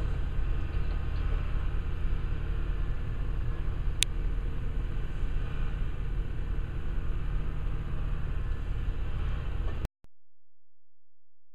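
Diesel engine of a rail-mounted tie handler running steadily while its boom works, with a single sharp click about four seconds in. The sound cuts off suddenly near the end.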